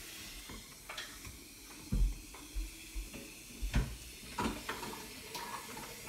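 Glass coffee carafe being rinsed out at a kitchen sink: a few light knocks and clinks as it is handled, over a faint steady hiss.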